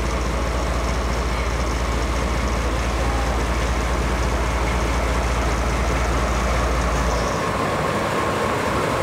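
JNR Class DE10 diesel-hydraulic locomotive's V12 diesel engine running as it moves slowly at walking pace, a steady mechanical noise with a low drone that drops away about seven seconds in.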